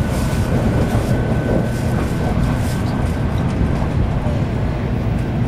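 Shinkansen train running at speed, heard from inside the passenger cabin: a steady deep rumble with a faint steady high whine above it.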